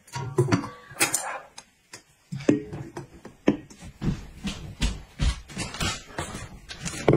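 Stainless-steel basins clanking as they are set down upside-down over bowls on a wooden table, followed by a run of knocks and thuds.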